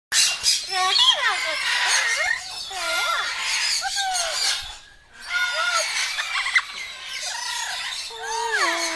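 Amazon parrot vocalizing in a loud, sing-song run of sliding squawks and whistled calls, pausing briefly about five seconds in.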